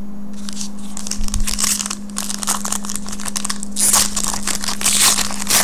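Foil wrapper of a Topps Valor football card pack being torn open and crinkled by hand: a dense crackle that starts about half a second in and is loudest near the end. A steady low hum runs underneath.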